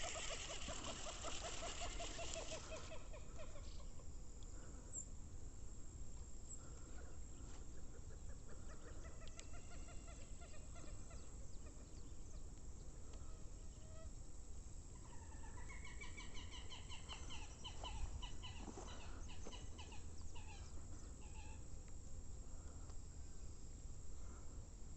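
Birds calling in bouts of quick, repeated notes: one bout in the first few seconds, fainter calls in the middle, and another bout about two-thirds of the way in, over a steady low background hum.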